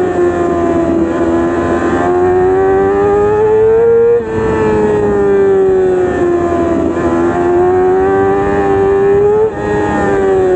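Yamaha R6's 600 cc inline-four running at high revs. Its pitch sags and climbs, then drops abruptly with a brief dip in loudness twice, about four and nine and a half seconds in, like quick gear changes.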